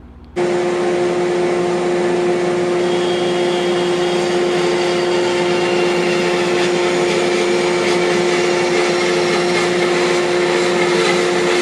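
Large bandsaw running and cutting through a log section, a steady mechanical drone with a constant hum, starting abruptly about half a second in.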